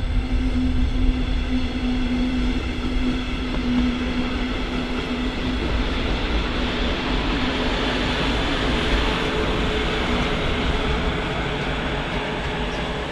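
Electric train moving through the station with a steady rumble and a steady electrical hum that fades out about ten seconds in; a second, higher hum comes in about eight seconds in as a hiss builds.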